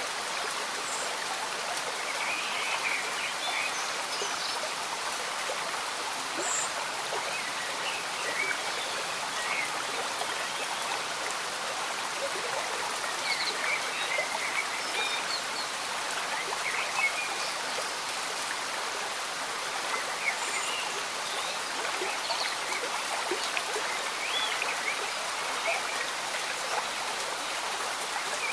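A slow-moving stream bubbling and gurgling steadily, with gentle rain falling.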